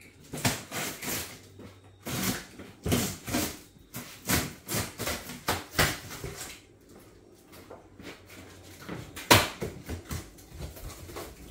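A utility knife slicing through packing tape and cardboard along a large shipping box's seam, a quick run of scraping cuts, then cardboard flaps being pulled and folded open. A single sharp knock about nine seconds in is the loudest sound.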